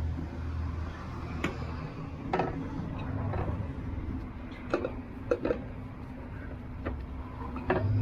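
Scattered clicks and knocks of parts and tools being handled, about eight sharp ones spread irregularly, over a low hum that stops about two seconds in.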